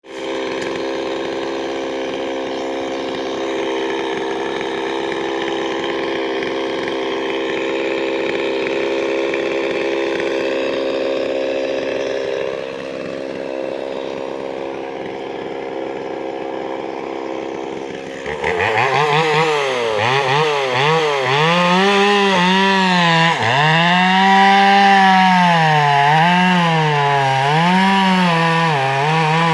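Two-stroke chainsaw cutting wood. For about the first eighteen seconds it runs at a steady pitch; then it gets louder, and its engine speed dips and rises again and again as the chain loads up in the cut.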